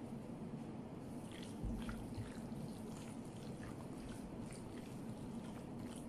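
Hands squishing and kneading a wet ground-meat mixture in a glass bowl, soft squelches and ticks over a steady low hum, with a dull bump about a second and a half in.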